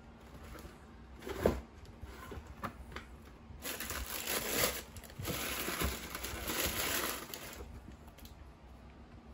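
A single knock about a second and a half in as the cardboard shoebox is handled, then tissue paper crinkling for about four seconds as it is folded back from the sneakers inside.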